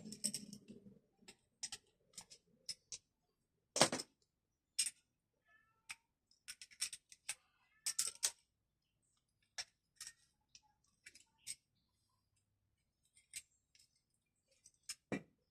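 Irregular sharp clicks and light taps of hand tools and small parts being handled during a repair, with a louder knock about four seconds in and another near the end.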